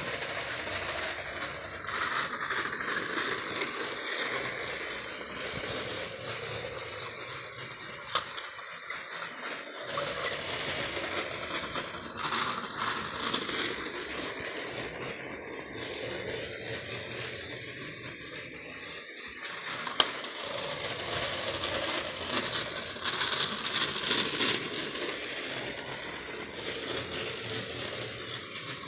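Lego Winter Holiday Train (10254) running on plastic track, a steady mechanical rattle and clatter that grows louder twice as it passes close by, with a couple of single sharp clicks.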